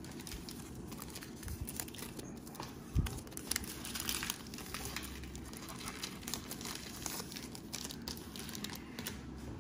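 Cellophane wrapper of a trading-card pack crinkling in irregular crackles as it is handled and opened, with a single knock about three seconds in.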